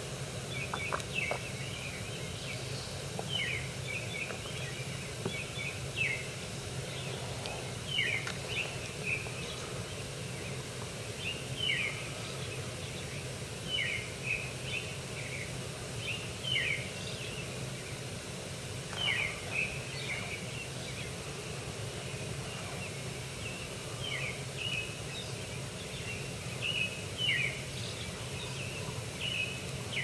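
Songbirds calling: short, sharp chirps that slide downward in pitch, repeated every second or two, over a steady low rumble.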